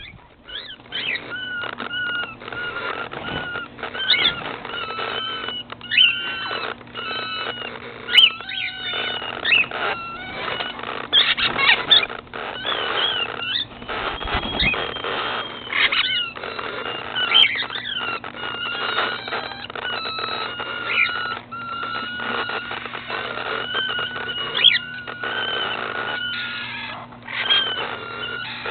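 A flock of cockatiels in an aviary calling and chattering: many short whistled chirps and upswept calls overlapping without a break, over a steady low hum.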